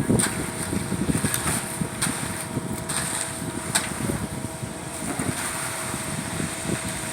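Concrete truck's diesel engine running: a low, uneven rumble with a few faint clicks.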